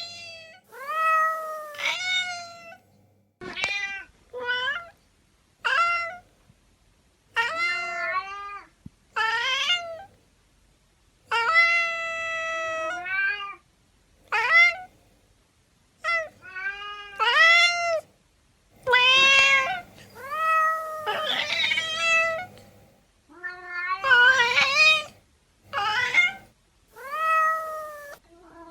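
Domestic cats meowing over and over, close to twenty separate meows with short gaps between them. One long, drawn-out meow comes about twelve seconds in, and later some meows overlap as the cats call over each other.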